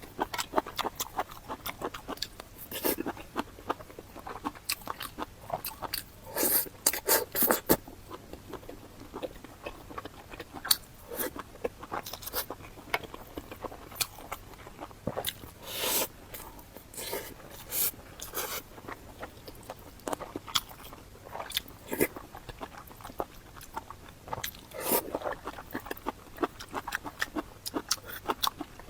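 A person biting and chewing food close to the microphone, with irregular short, sharp mouth sounds.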